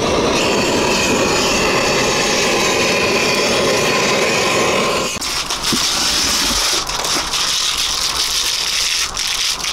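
Butane torch on a gas canister blowing a steady, rushing flame into charcoal to light it. About five seconds in, the rush gives way to a thinner hiss with scattered crackles from the lit charcoal fire.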